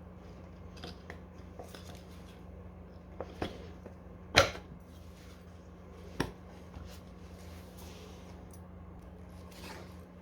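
Tools and parts being handled during scooter tyre work: scattered light clicks and rattles over a steady low hum, with a sharp knock about four seconds in and a smaller one about two seconds later.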